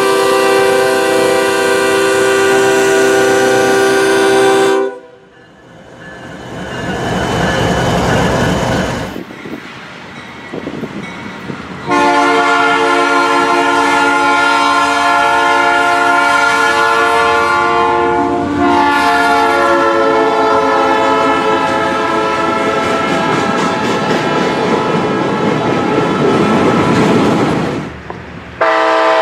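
Train horn sounding long, steady chord-like blasts; it cuts off about five seconds in, a rumbling noise like a passing train swells and fades, then the horn sounds again for about fifteen seconds, shifting its chord partway through.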